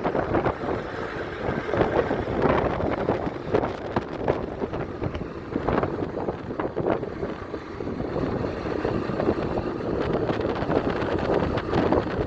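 Wind buffeting the microphone: a steady rushing noise with irregular gusts.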